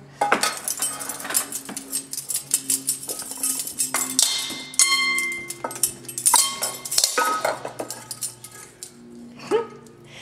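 A wooden spoon and a metal utensil banging on a stainless steel pot and a copper pot lid, making irregular clanks and clinks, many with a short metallic ring.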